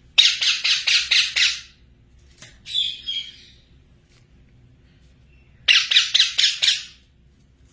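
Parrot squawking: a rapid run of about seven harsh squawks, a softer call about three seconds in, then another rapid run of squawks near six seconds.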